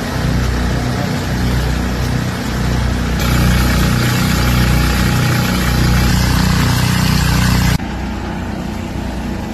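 A sewer-cleaning vacuum truck's engine running steadily. After a cut about three seconds in, a small engine-driven portable water pump runs louder, pumping floodwater out through its hoses. Near the end, after another cut, a steady engine hum goes on more quietly.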